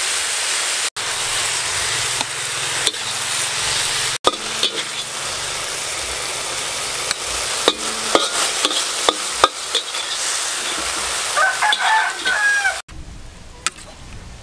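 Beef and winged beans sizzling in a hot wok, with a metal spatula scraping and clicking against the pan. Near the end a chicken calls briefly, then the sizzle cuts off and it goes much quieter.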